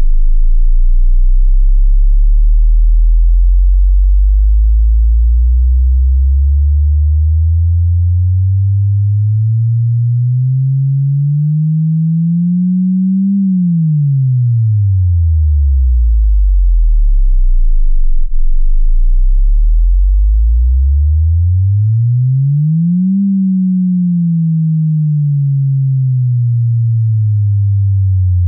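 A pure sine-wave test tone sweeps through the bass range, loud and steady. It climbs slowly from about 50 Hz to 200 Hz, drops quickly back to the bottom, then rises quickly and falls slowly again. It is a bass sweep for checking that headphone drivers play it cleanly without rattle or buzz.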